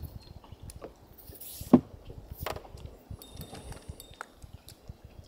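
Sparse light clicks and knocks of fishing gear in a small boat while a smallmouth bass is played on a rod, with one sharp knock a little under two seconds in.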